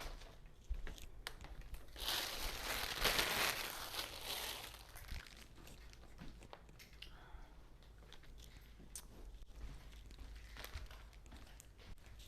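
Plastic sheeting rustling as it is handled, loudest for a few seconds starting about two seconds in, with scattered small clicks and knocks.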